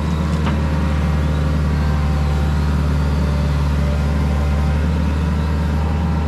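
Heavy equipment diesel engine running steadily at a constant speed, with a deep, even drone.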